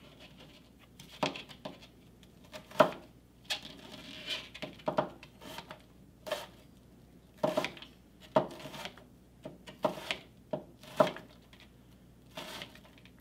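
Chef's knife dicing an onion on a plastic cutting board: a dozen or so sharp chopping knocks at an uneven pace, some coming in quick pairs.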